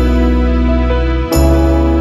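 Background music: slow, held chords over a deep bass, with a new chord struck a little over a second in.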